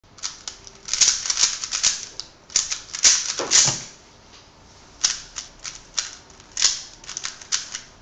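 GAN Air UM 3x3 speedcube being turned fast by hand: rapid clattering plastic clicks of the layers turning, in quick flurries with a short lull about four seconds in.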